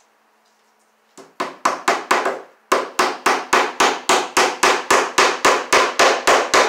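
Hammer striking a fastener into an overhead wooden beam. A few blows start about a second in, then after a short pause a steady run of about four blows a second.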